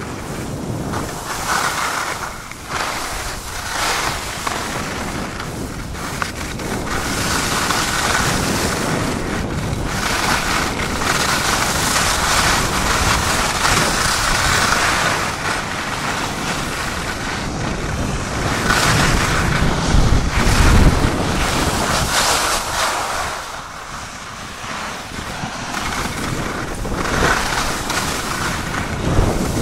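Wind rushing over the microphone of a camera moving fast down a ski slope, mixed with the scrape and hiss of edges carving on hard snow, swelling and fading with the turns. A heavier low rumble comes about two-thirds of the way through.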